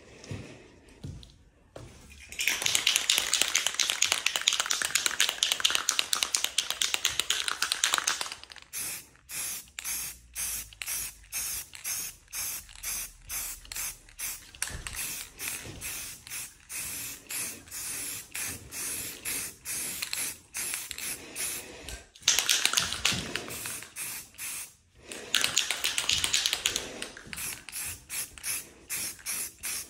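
Aerosol spray paint can spraying: a long continuous hiss a couple of seconds in, then a quick run of short spurts. Two more long sprays come past the two-thirds mark, followed by more short spurts.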